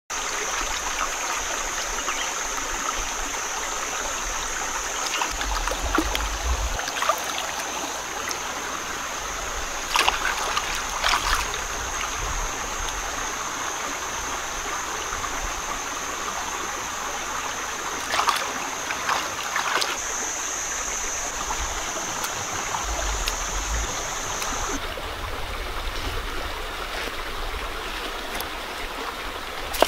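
Shallow rocky stream flowing steadily. Over it a steady high-pitched whine cuts off about 25 seconds in, and there are a few sharp knocks, about ten seconds in and again around eighteen seconds.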